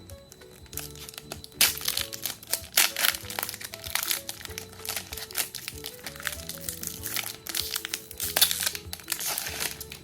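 Foil wrapper of a Pokémon trading card booster pack crinkling and crackling as it is handled, loudest in two stretches about two seconds in and near the end, over background music.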